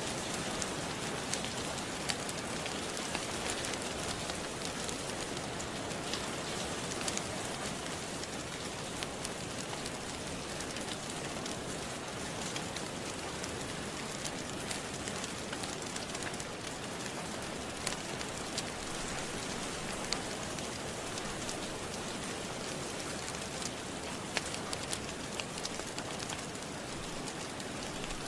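Steady rain falling with a wood fire crackling: an even hiss with scattered sharp pops through it.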